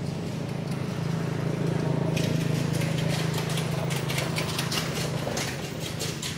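Quick, crunching footsteps on dry dirt and gravel from about two seconds in, stopping shortly before the end, over a steady low hum.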